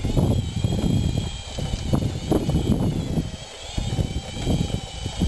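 A radio-controlled scale bulldozer's drive motors and gearing whining faintly and steadily as it moves, under an irregular low rumbling like wind buffeting the microphone.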